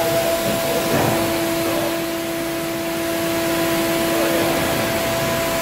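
Steady whirring noise of running shop machinery, with a steady hum tone throughout and a lower tone that holds from about a second in until past the middle.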